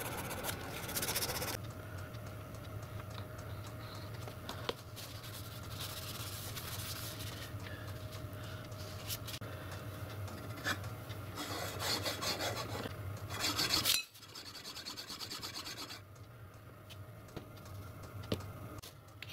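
Lathe castings being scoured by hand to clean off light surface rust: rapid back-and-forth rubbing and scraping strokes that come in several stretches, loudest about twelve to fourteen seconds in.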